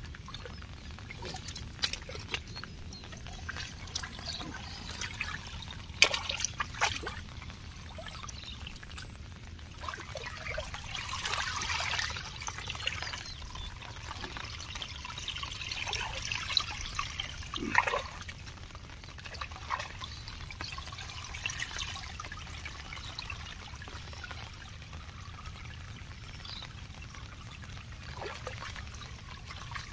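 Muddy water trickling and splashing along a narrow channel cut through a pond bank, with hands scooping in the wet mud and sharp splashes every so often. The water swells louder twice, about ten and sixteen seconds in.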